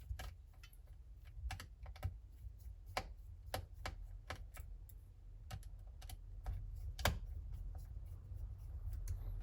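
Small, sharp clicks and taps at an irregular pace, about one or two a second, from a precision screwdriver removing the screws from a smartphone's plastic midframe. The loudest click comes about seven seconds in.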